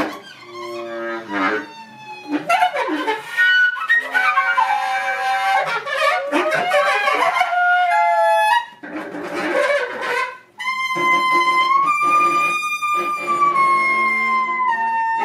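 Contemporary chamber music: wind instruments playing held tones and sliding pitches among scattered sharp attacks. It breaks off briefly twice, then settles into one long high held tone that bends downward near the end.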